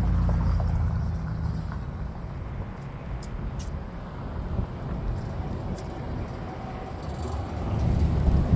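Low, steady vehicle rumble with an engine hum that is strongest for the first second or so and then eases into a fainter background.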